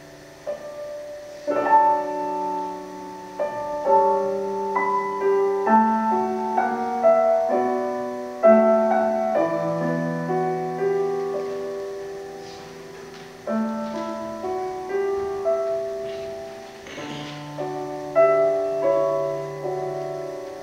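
Solo piano music, a slow piece of single notes and chords struck one after another. It opens softly, grows fuller with a chord about a second and a half in, thins out around the middle and fills out again near the end.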